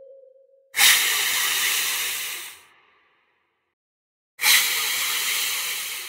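Two loud, long hisses, each about two seconds, starting sharply and fading away, with a silent pause between them.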